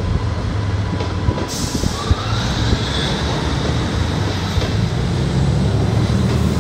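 Diesel multiple unit pulling away along the track, its underfloor diesel engine giving a steady low drone over the rumble of the train.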